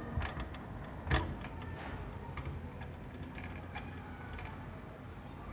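Windstorm with heavy rain: a steady rush of rain and wind, with low rumbling buffets. It is broken by a handful of sharp ticks and knocks, the loudest a single knock about a second in.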